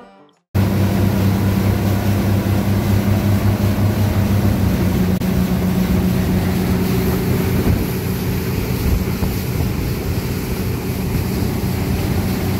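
Twin Yamaha 200 outboard motors running steadily at cruising speed, with wind on the microphone. The sound cuts in suddenly about half a second in.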